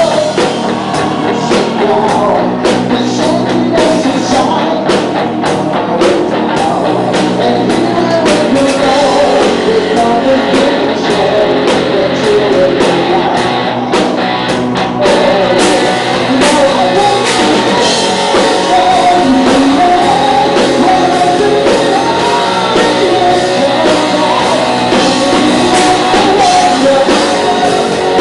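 Rock band playing live: distorted guitars, bass and drum kit, with a singer's voice over them, loud and continuous.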